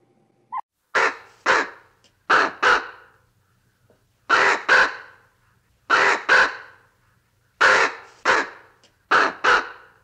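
Common raven calling: six pairs of harsh caws, each pair two quick calls about half a second apart, with short pauses between the pairs.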